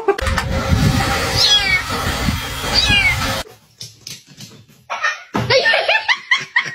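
A cat meowing several times in quick succession in the last couple of seconds. Before that comes a loud noisy stretch with two short falling squeals, which cuts off suddenly.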